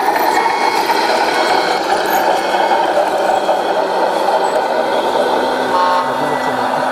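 Radio-controlled model truck running, a steady, dense engine-like drone.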